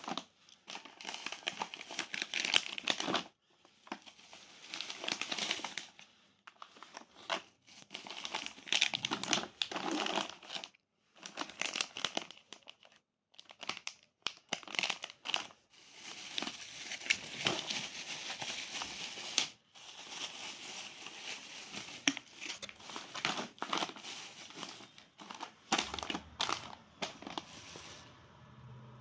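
Crinkling and rustling of plastic snack packets, potato chip bags and foil pouches, being handled and set down, in irregular bursts with short pauses between them.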